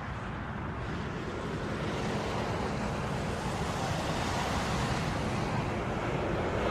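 Boeing 787 jetliner on final approach with its landing gear down. Its engines give a steady rushing roar that grows gradually louder as the aircraft approaches.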